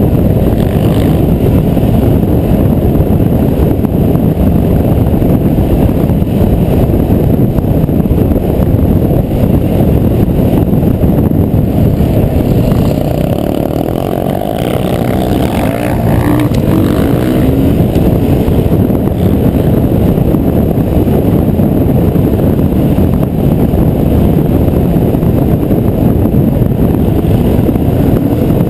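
Enduro dirt bike engine running at speed on a dirt track, heard through a bike-mounted action camera with heavy wind buffeting on the microphone. Around the middle the sound dips a little and the engine note shifts as the bike climbs a steep rutted slope.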